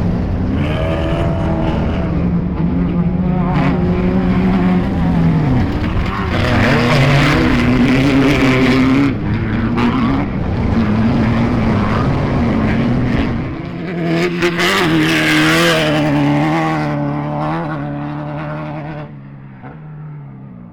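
Speed UTV race cars (side-by-sides) driving past on a dirt course, their engines revving up and down through the gears, with more than one engine heard at once. The sound is loudest twice, about a third of the way in and again about two-thirds in, and fades away near the end.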